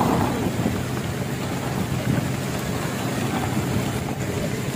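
A fishing boat's engine running steadily at idle, a continuous low hum under a wash of noise.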